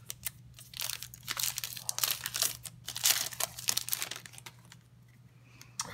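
Trading-card pack wrapper being torn open and crinkled by hand: a dense run of sharp crackles starting just under a second in that dies down after about four and a half seconds.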